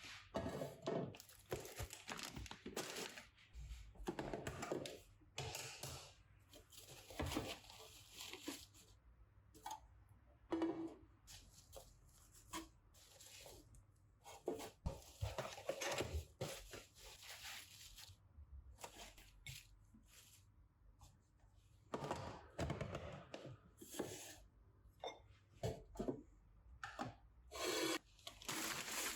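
A long run of irregular rustling and tearing sounds with light knocks, as of hands handling paper or packaging.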